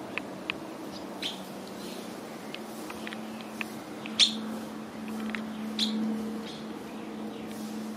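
Yellow warbler giving short, sharp chip calls at irregular intervals, the loudest about four seconds in, over a low steady hum.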